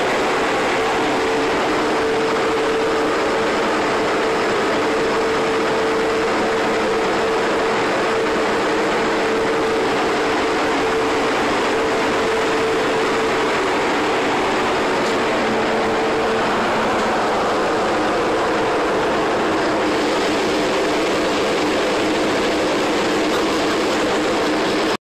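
Steady, loud running noise of a tug underway at sea: engine and machinery drone mixed with rushing water. A steady hum in it stops about two-thirds of the way through.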